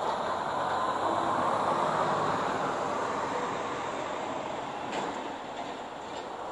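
Street traffic: a box truck's engine and tyres going past, loudest about two seconds in and then fading as it moves away. A short click about five seconds in.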